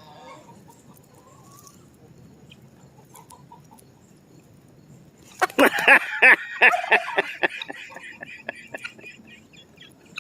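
Chickens clucking quietly, then about halfway a chicken breaks into loud, rapid squawking that fades off over a few seconds.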